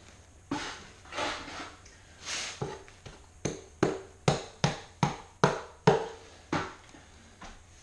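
Steel trowel scraping and slapping thinset mortar onto the back of a large floor tile (back-buttering). A few softer swipes come first, then a run of about eight sharper strokes, roughly two a second, from the middle on.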